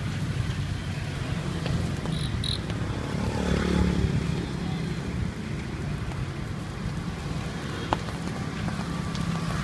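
Street traffic: a steady low engine rumble, with a vehicle passing close and swelling loudest about three to four seconds in. A sharp click near the end.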